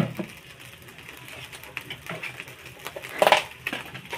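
Kitchen utensil clatter at a large aluminium pot of fried rice. A sharp knock comes at the start, then light ticks. About three seconds in there is a short scraping clatter of the steel ladle against the pot as it is picked up.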